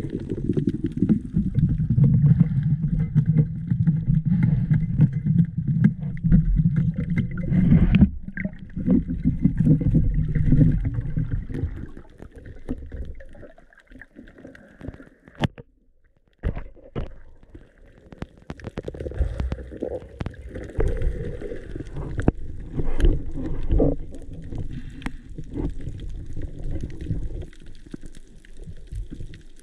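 Muffled water noise heard underwater through a camera housing: a rough, gurgling low rumble, loud for about the first twelve seconds, then dropping away. After that come scattered knocks and clicks and fainter patches of rumble.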